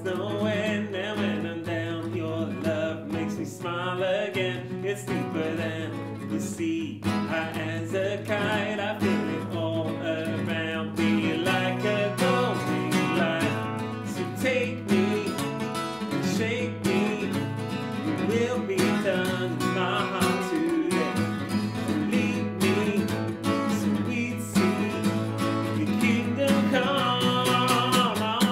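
Acoustic guitar playing with voices singing a worship song.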